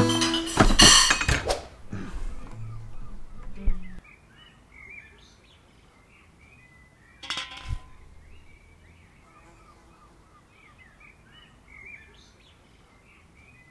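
A few loud knocks and crashes in the first two seconds, then faint birdsong, scattered chirps against quiet outdoor ambience, with one short noisy burst about seven seconds in.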